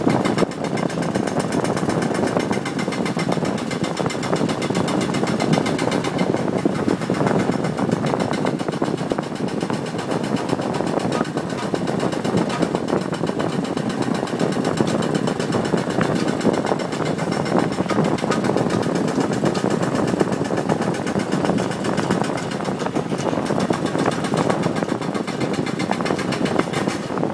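Demolition breaker hammering away in a fast, unbroken run of impacts.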